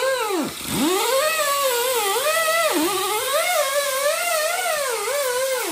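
Music: a melody of smoothly gliding, swooping notes in a theremin-like tone.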